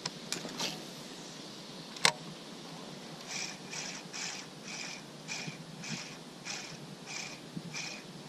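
Spinning reel through a cast and retrieve: a few light clicks as the cast is made, a sharp snap about two seconds in as the bail closes, then the reel cranked steadily, giving an even pulse about twice a second as the lure is wound in.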